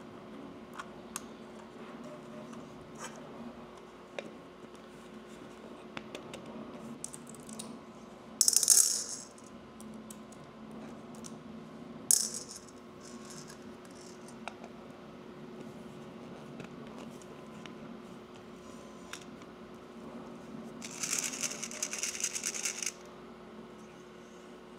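Tiny steel balls rattling against a clear plastic ornament shell in short bursts, about eight seconds in, again about twelve seconds in, and a longer rattle near the end, amid light clicks of 3D-printed plastic parts being handled.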